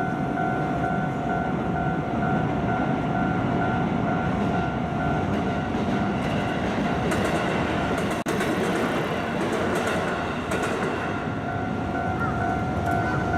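A train passing over a level crossing, its running noise loud and steady. The crossing's warning alarm is heard ringing at the start, is drowned out by the train, and comes through again near the end.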